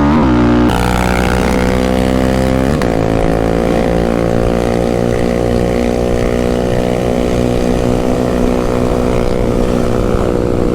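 Single-cylinder sport ATV engines racing at wide open throttle. The revs drop sharply twice, under a second in and just under three seconds in, as the rider shifts up, then climb and hold high and steady.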